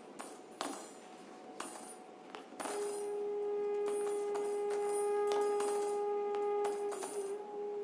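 Contemporary chamber music for flute, viola and harp: a few light, jingling percussive taps, then about three seconds in a single long held note that wavers briefly near the end.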